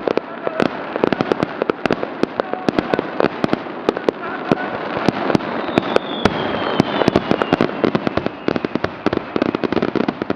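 Aerial fireworks going off in quick succession: a dense, rapid crackling and popping of many overlapping bursts. A faint falling whistle comes about halfway through.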